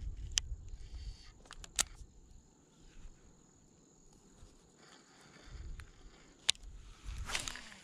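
Close handling and rustling at the microphone as a topwater frog is worked on a baitcasting rod and reel, with three sharp clicks and a rushing swish of movement near the end.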